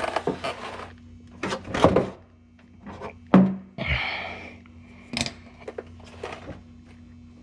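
Scattered metal knocks and clunks of a socket wrench working on an engine oil drain plug as it is loosened, with a short scrape about four seconds in. A steady low hum sits underneath.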